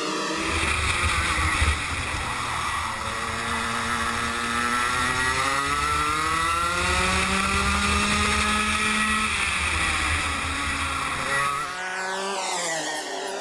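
Rotax MAX 125 cc two-stroke kart engine heard from an on-board camera, its pitch rising steadily as the kart accelerates, then dropping as it slows. The sound changes abruptly near the end.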